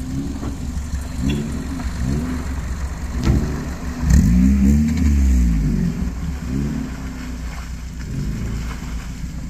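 Maruti Gypsy engine revving again and again as it works through a muddy off-road climb, the revs rising and falling about once a second, with one longer, louder rev-up and fall about four seconds in.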